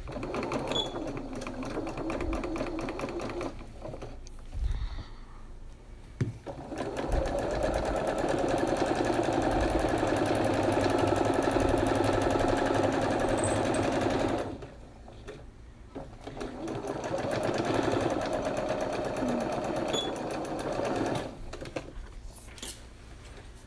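Janome computerized sewing machine stitching a straight seam through layered cotton, flannel and chiffon, running in three stretches with short pauses between them; the longest, loudest run is in the middle.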